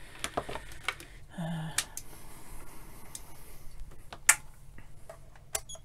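Scattered small clicks and taps from test leads being handled and connected and bench instrument buttons being pressed, with one sharper click a little past four seconds in.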